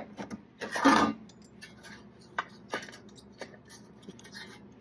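Light metallic clicks and clinks of sheet metal and hand tools being handled, with one louder scrape about a second in.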